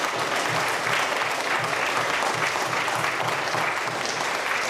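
Audience of wedding guests applauding steadily, a dense patter of many hands clapping at once.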